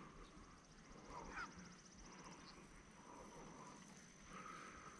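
Near silence: faint pond-side outdoor ambience with a thin, high, steady trill. A few faint short animal calls sound over it, one rising about a second and a half in.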